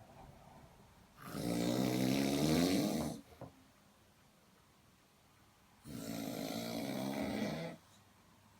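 A man snoring heavily, deep in the throat: two long snores, each about two seconds, roughly four seconds apart.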